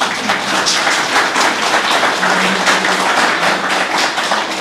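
Audience applauding: many hands clapping in a dense, even spread throughout.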